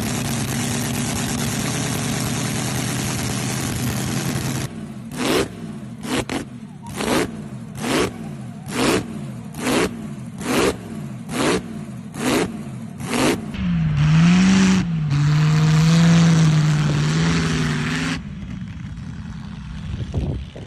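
Very old car: its engine runs steadily, then about nine sharp, evenly spaced bursts come roughly once a second. It ends with a loud, low held tone, wavering at first, for about four seconds.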